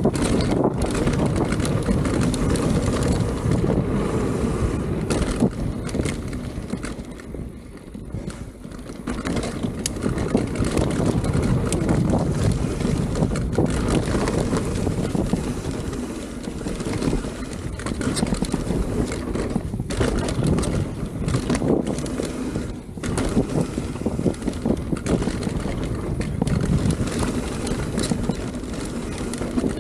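Mountain bike riding fast down a dirt flow trail: steady rumble of wind buffeting the microphone and tyres on dirt, with scattered rattles and knocks from the bike. The noise eases briefly about eight seconds in.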